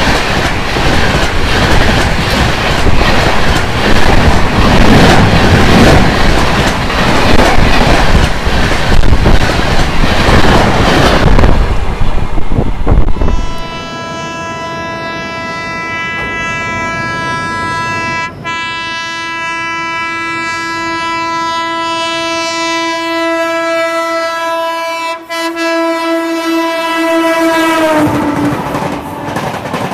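An express train rushing past close by at full speed, a loud continuous rush of air and rapid wheel clatter. About halfway through the sound changes to a train horn held in one long steady blast for about fourteen seconds over the quieter running of passing coaches; the horn dips slightly in pitch just before it stops near the end.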